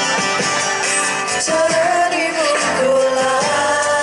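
Live band music: a singer holding long, bending notes over acoustic guitar accompaniment, heard through the stage PA.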